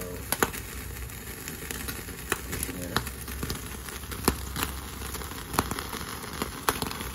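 Slices of pork belly sizzling on a wire grill rack over an open flame, the fat crackling with sharp pops about once a second over a steady low rumble.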